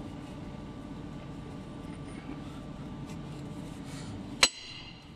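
Metal clinking as the retaining nut is worked onto a truck air dryer's desiccant cartridge: a steady low hum, then about four and a half seconds in a single sharp metallic click with a short ring, after which the hum drops.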